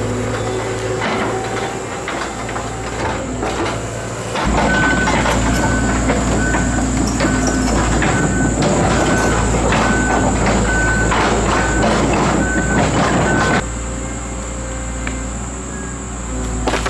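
Tracked hydraulic excavator's diesel engine running, with sharp cracks and knocks. About four seconds in it works harder and louder for roughly nine seconds, with a regular beep about every two-thirds of a second, then drops back to a steadier run.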